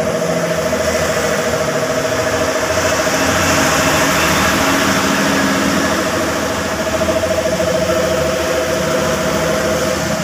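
A motor-driven machine running steadily with a constant droning hum and a hiss that swells for a few seconds midway.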